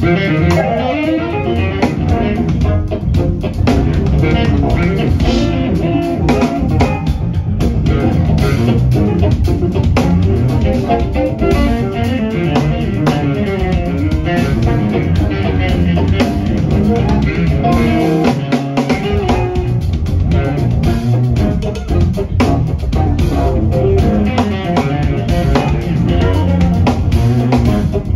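Live band playing an instrumental groove at full volume: electric bass, electric guitars, keyboard and drum kit.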